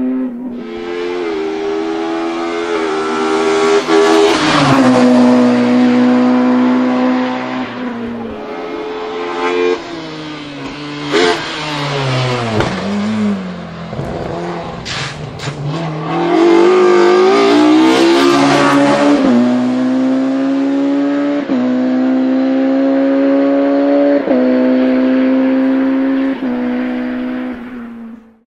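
Ford Escort Mk2's naturally aspirated 2.0-litre 16-valve race engine on individual throttle bodies, screaming at full throttle. Its pitch climbs through each gear and drops at every upshift. The car passes close by about halfway through, with a few sharp cracks just after.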